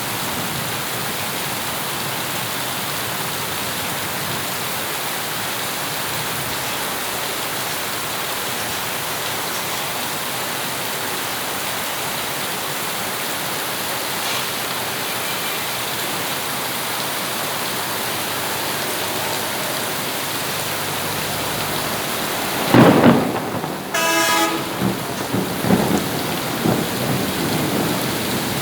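Steady heavy rainfall. About three-quarters of the way through, a sudden loud crack of thunder is followed by uneven rumbling, and a brief horn-like tone sounds just after the crack.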